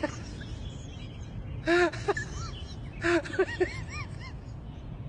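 An animal making short calls, each rising then falling in pitch. They come in bursts about a second in and again near three seconds.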